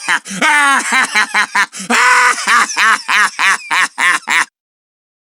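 A voice laughing, a falling squeal early in the laugh and then a long run of short pulses at about four a second, cut off suddenly about four and a half seconds in.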